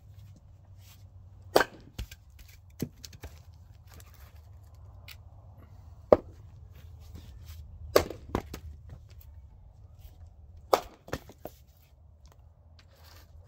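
Axe splitting short rounds of firewood on a chopping block: four sharp cracks, about one and a half, six, eight and eleven seconds in, each followed by one or two lighter knocks.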